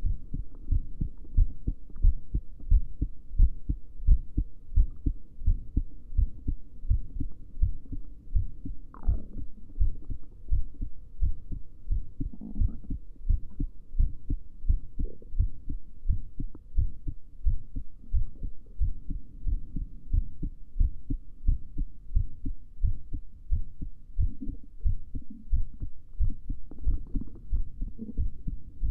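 A woman's heartbeat at rest: a steady, regular run of low thumps.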